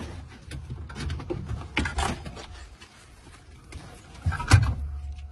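Irregular knocks, clicks and rattles of handling, the loudest knock about four and a half seconds in, over a low steady hum.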